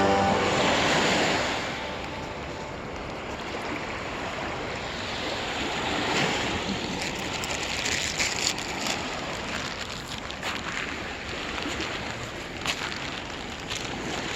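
Lake Erie waves breaking and washing up on the shore, loudest in the first couple of seconds and then a steadier, rolling wash.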